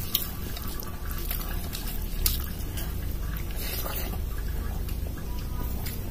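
Wet squishing and sticky smacking of rice and dal mixed by hand and eaten, with scattered sharp clicks, over a low steady rumble.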